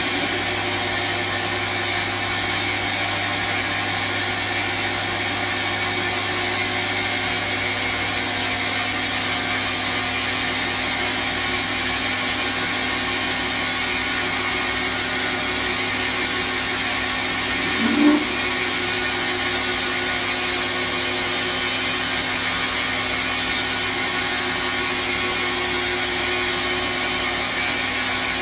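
Metal lathe running steadily while turning a blank, a continuous machine hum with several steady tones. About two-thirds of the way through comes one brief, louder rising squeal.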